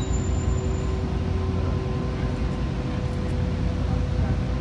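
Ferry engine running with a steady low rumble and a steady hum, heard aboard as the boat comes in to the pier.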